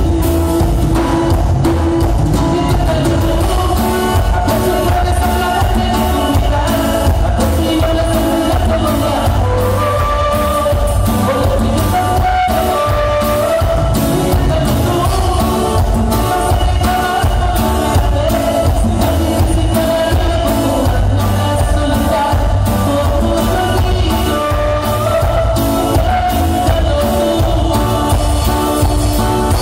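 Live Latin dance band amplified through a PA, with singing over a steady bass and drum beat.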